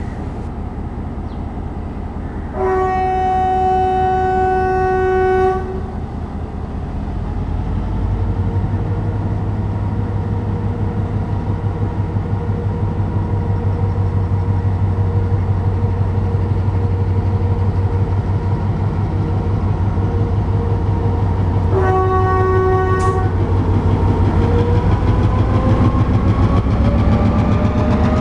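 Sri Lanka Railways Class M6 diesel locomotive sounding its horn in one long blast of about three seconds, then a second short blast about 22 seconds in. Between the blasts the diesel engine throbs louder, and near the end its pitch rises as the locomotive pulls out and passes close by.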